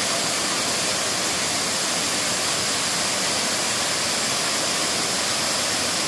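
Waterfall pouring over a rock ledge into a pool: a steady, even rush of falling water.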